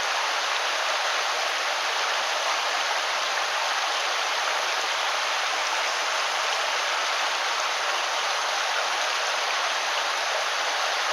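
Steady rushing of a mountain stream, an even hiss that doesn't change.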